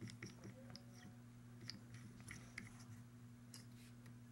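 Near silence over a steady low hum, with a few faint, scattered clicks as a phone logic board is handled and clamped into a board-holding vise.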